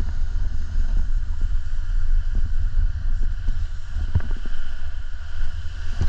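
Wind buffeting the microphone: a steady low rumble that swells and dips, with a few faint knocks about four seconds in.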